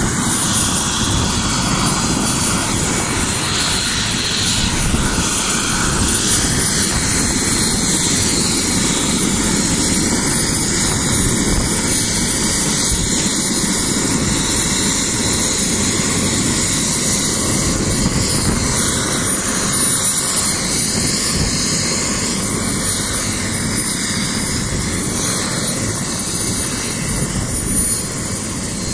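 Helicopter running on the ground close by with its rotor turning: a steady, loud rotor and engine noise with a thin high whine over it, easing slightly near the end.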